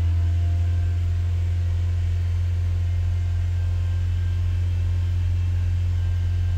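2012 Honda Accord's four-cylinder engine held steady at about 2,500 rpm, running evenly with a constant deep hum. It is a normal, healthy-running engine.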